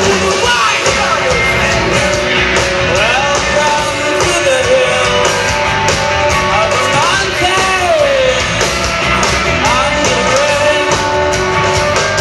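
A rock band playing live with a singer, the voice sliding up and down in pitch over a dense, steady band sound with regular cymbal hits.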